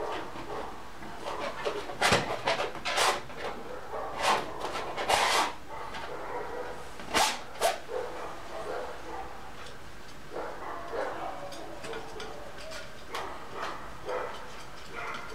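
Dogs barking off and on, with the loudest barks in clusters about two to five seconds in and again near seven seconds, and quieter barks later.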